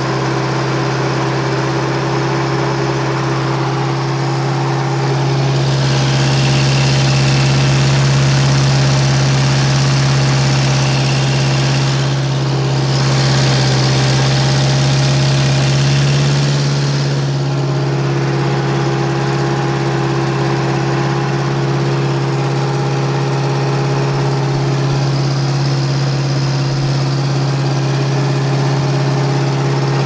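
Bobcat 610 skid steer's engine running steadily just after a cold start. It grows louder and busier for a stretch from about six seconds in, then settles back about seventeen seconds in.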